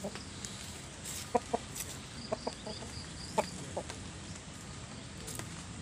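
Bare-headed rooster giving a few short, low clucks, some in quick pairs.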